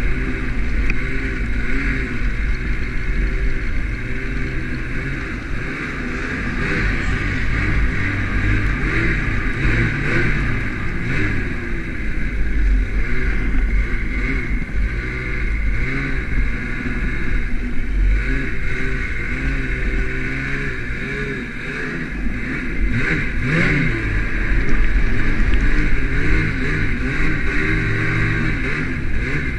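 Ski-Doo snowmobile engine running while riding through deep fresh snow, its pitch rising and falling as the throttle is worked, and louder near the end.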